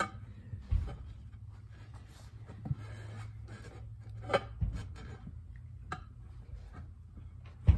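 Hands handling and rubbing a rubber drag racing slick, light scraping and rustling with a few dull thumps, the loudest near the end, over a steady low hum.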